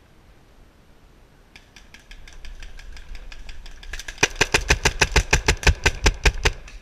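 Tippmann paintball marker firing a rapid string of shots, about six a second, starting a little past halfway. Fainter pops of shots come before it, from about one and a half seconds in.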